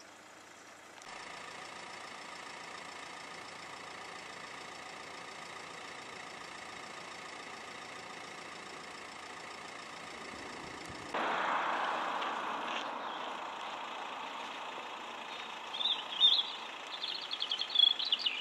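Steady engine hum that steps up louder about eleven seconds in and then slowly fades, with birds chirping near the end.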